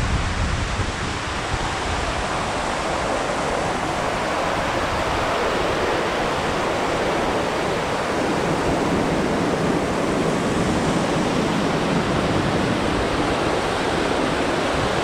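Waterfall close by, a steady rush of falling water. Wind buffets the microphone briefly at the start.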